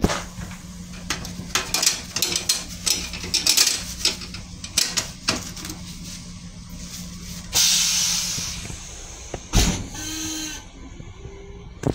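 Steady low hum inside a commuter railcar restroom, with a run of irregular clicks and rattles. About seven and a half seconds in comes a loud hiss that fades over about a second, then a sharp knock near the end.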